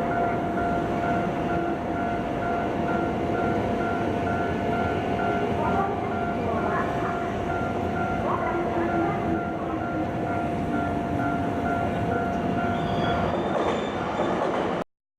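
A train running over a Japanese level crossing while the crossing's warning bell rings on, a steady repeating electronic tone. The bell stops about two seconds before the end, and the sound cuts off abruptly just before the end.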